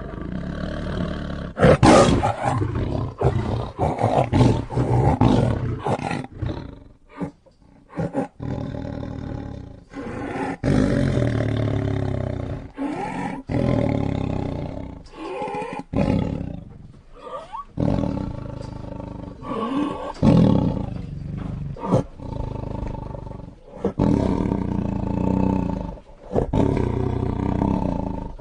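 Lion roaring again and again in choppy, edited stretches that start and stop abruptly, with short gaps between them.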